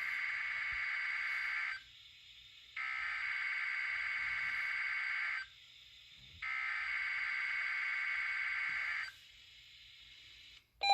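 NOAA Weather Radio SAME digital header: three identical bursts of warbling data tones about two and a half seconds long, a second apart, heard through a weather radio's speaker. It is the coded Required Weekly Test signal that automatically activates warning receivers.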